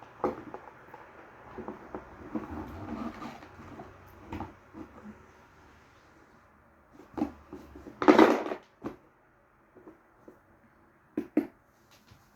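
A cardboard game box and its contents being handled: soft rustling and sliding with scattered light knocks, and one louder scraping rustle about eight seconds in.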